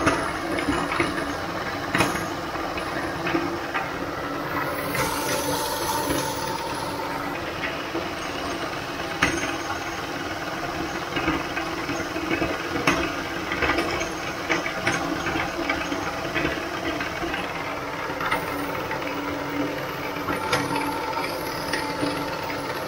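Motor-driven meat grinder running with a steady hum while crushing hard pink plastic toys, with frequent sharp cracks and snaps of plastic breaking in the auger and cutting plate.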